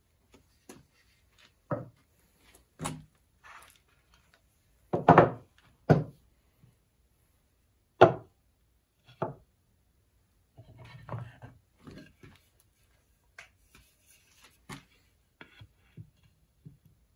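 Wooden boards being handled and set down on a plywood workbench: a series of irregular wooden knocks and clunks, the loudest a few seconds in and about eight seconds in, with lighter taps and scrapes between.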